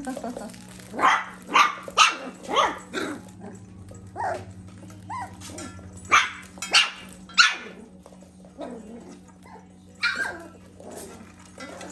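Young mini goldendoodle and labradoodle puppies barking in short, sharp yaps: a quick run of four about a second in, a few single yaps, another quick run in the middle, and a couple more near the end.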